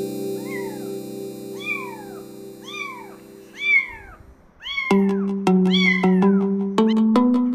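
A kitten meowing about once a second: six short, high meows that each rise and fall in pitch. They sound over background music, soft sustained chords that change about halfway to a bright mallet melody.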